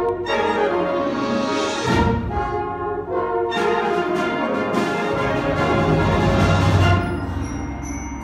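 A live band with a strong brass section playing sustained chords; the low brass swells in the second half.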